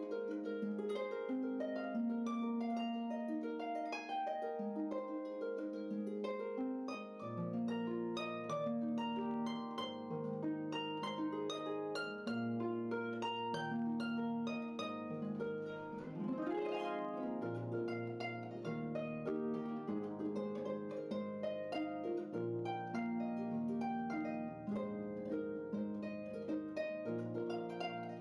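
Background music of plucked-string notes, with lower bass notes joining about seven seconds in.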